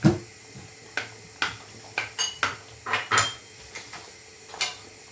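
Kitchen utensils and dishes clinking and knocking around a stainless steel saucepan during cooking: a sharp knock right at the start, then about seven lighter clinks over the next few seconds, two of them with a short metallic ring.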